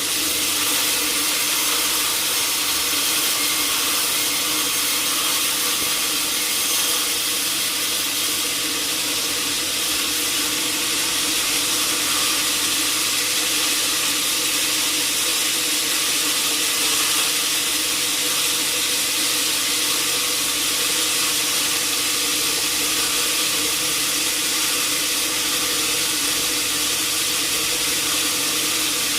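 Sawmill saw running steadily, a constant high hiss over a low machine hum.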